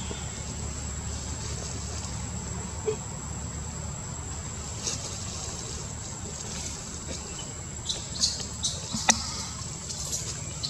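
Outdoor forest ambience: a steady high-pitched insect buzz over a low rumble, with a few short high squeaks and a sharp click about eight to nine seconds in.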